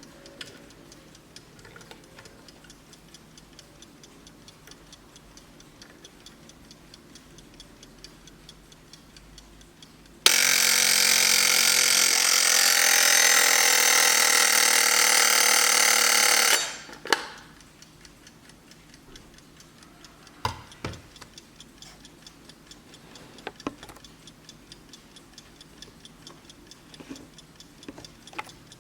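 Vintage German Blessing mechanical alarm clock ticking steadily. About ten seconds in, its alarm goes off loudly for about six seconds, then cuts off suddenly. A few sharp knocks follow.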